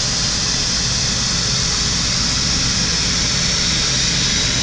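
Datron M8Cube CNC mill with its high-speed spindle running: a steady high hiss over a low hum.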